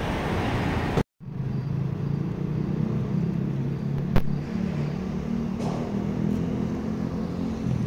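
Street traffic: motor vehicle engines running with a steady low hum over road noise, with one sharp click about four seconds in. The sound cuts out completely for a moment about a second in, then returns.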